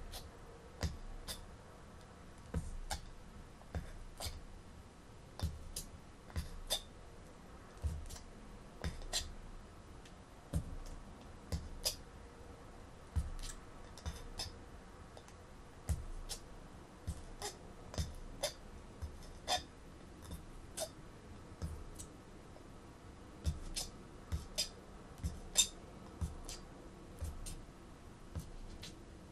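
Aluminium foil stretched over a packed hookah bowl being pierced again and again with a thin metal pick, an irregular run of short sharp pops and clicks, about one or two a second, as many large holes are punched through it.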